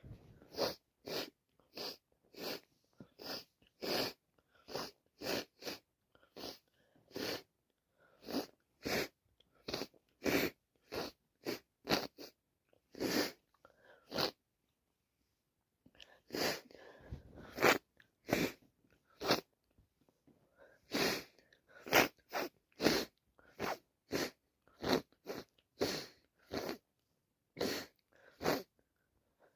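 A person sneezing and sniffing over and over from allergies, in short sharp bursts about one to two a second. The bursts stop for about two seconds around the middle, then come back with a longer, rougher stretch before the quick bursts resume.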